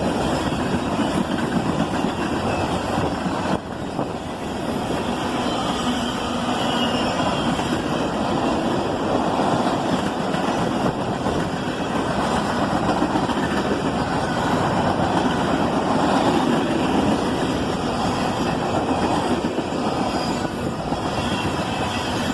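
CSX manifest freight train's cars rolling past on the rails: a steady rumble and rattle of wheels and cars, with a short dip in level about three and a half seconds in.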